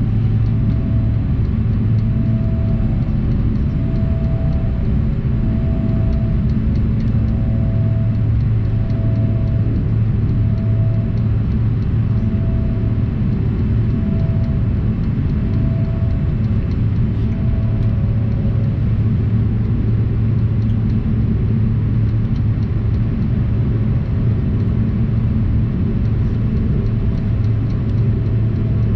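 Cabin noise inside a Bombardier CRJ-200 regional jet climbing after takeoff: a loud, steady drone with a low hum from its turbofan engines and the rushing air. A fainter tone pulses about every second and a half through the first two-thirds, then fades.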